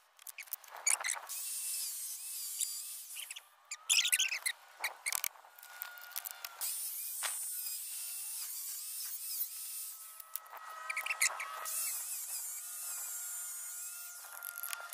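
Angle grinder running in short spells as it cuts apart a plastic electric air blower, with sharp knocks and rattles of the broken housing and motor parts being handled in between.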